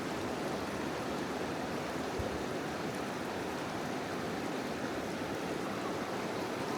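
The Merced River flowing: a steady, even rush of water.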